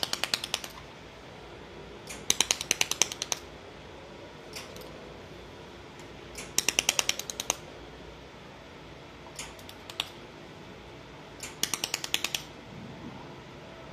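Pulsed laser welder firing, each laser pulse a sharp snapping click, about nine a second, in five short trains of up to a second with pauses between.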